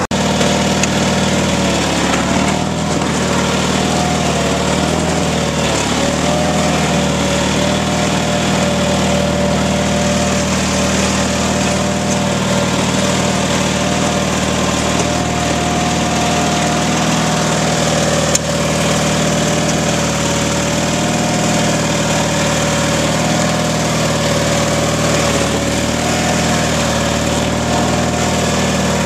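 Small garden tractor's engine running steadily while it pushes snow with a front plow blade, with a whine that wavers slightly in pitch. A single click sounds about two-thirds of the way through.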